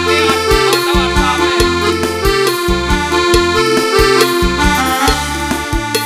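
Live band dance music: a steady beat of drum hits and a repeating bass line under a sustained, reedy lead melody.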